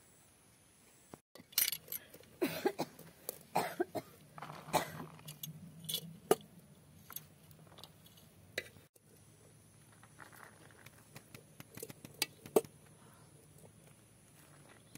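A metal serving spoon clinking and tapping against a steel pot as cooked rice is served out onto banana leaves. The sharp taps come thick and fast for a few seconds, then only now and then.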